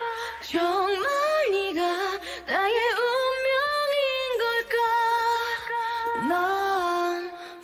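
Background song: a woman singing a slow melody over music, with pitch glides and long held notes.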